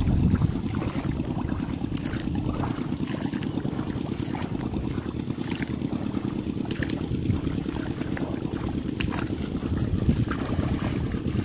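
Wind rumbling on the microphone, with scattered splashes of feet wading through shallow, grassy floodwater.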